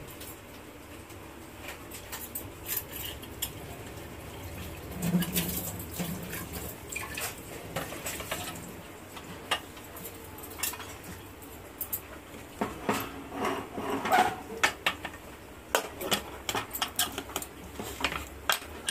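Metal pots and utensils clattering and clinking, with many separate knocks that come thickest in the second half.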